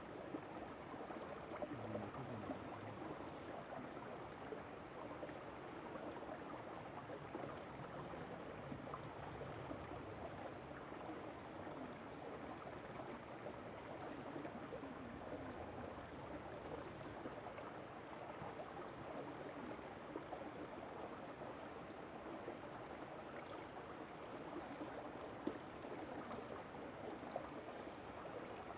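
River water flowing: a steady rush of water.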